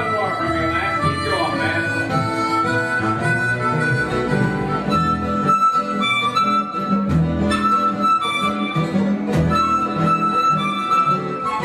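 Blues harmonica solo, with bent, sliding notes at first and then long held high notes, over acoustic guitar and upright bass backing.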